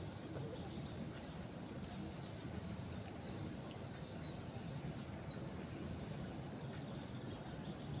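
Small birds chirping short high notes, a string of them through the middle, over a steady low outdoor rush of breeze and river water.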